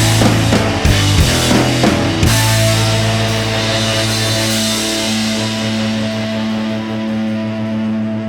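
Rock music with drums and guitar. About two seconds in the drum hits stop and a held chord rings on.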